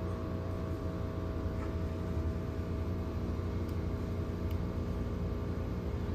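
Steady low electrical hum of the crepe vending machine's cooling unit, with a couple of faint ticks near the middle.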